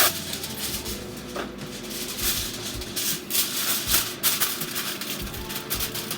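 Aluminium foil crinkling and rustling in irregular crackles as it is pressed into a baking pan to line it.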